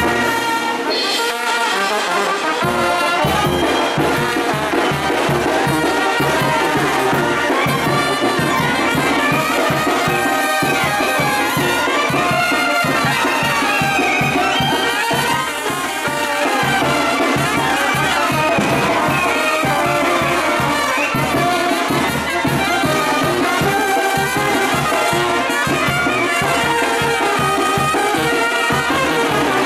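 Brass band playing a lively tune, trumpets and trombones over a steady beat.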